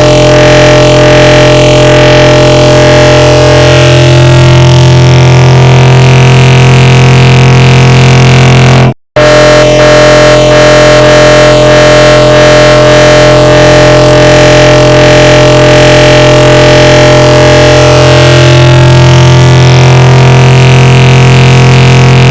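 The 'bruh' sound effect stacked on itself an enormous number of times, merged into one loud, distorted, steady drone with a strong low hum and no separate words. It cuts out briefly about nine seconds in and starts again the same way.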